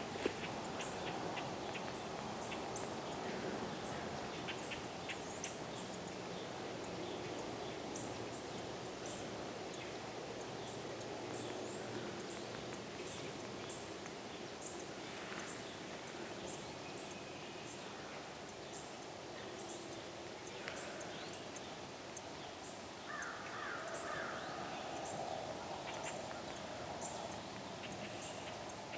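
Outdoor woodland ambience with birds calling: many short, high chirps repeating throughout over a steady background hiss, and a brief burst of calls about twenty-three seconds in.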